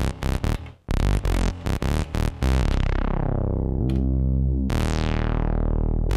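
Elektron Analog Four MK2 analog synthesizer playing a factory preset as it is auditioned. It opens with a quick run of short notes, then moves to held low notes that start bright and darken as they sustain, with fresh notes struck about four and five seconds in.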